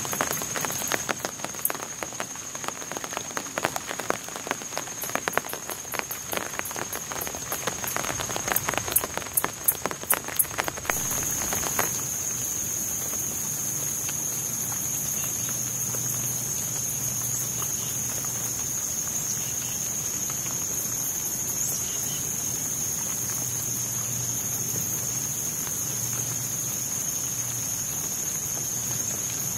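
Water dripping and raindrops pattering onto swamp water and leaves, with a steady high-pitched insect drone behind. About 11 seconds in, the dripping suddenly gives way to a louder, even insect drone with light rain.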